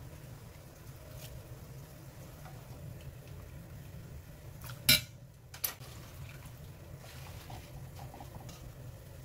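Cookware clatter while blanching soybean sprouts and spinach: two sharp metal knocks a little under a second apart about halfway through, the first the louder, over a low steady hum.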